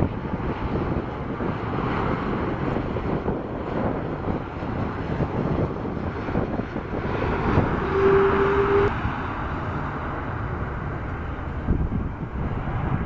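Jet engines of an Airbus A330 airliner running through its landing: a continuous rushing noise as it flares and touches down, loudest shortly after touchdown. A brief steady tone sounds about two-thirds of the way through.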